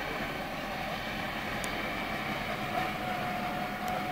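Tatra 148 fire truck's air-cooled V8 diesel running steadily as the truck moves, with a steady whine over the engine note.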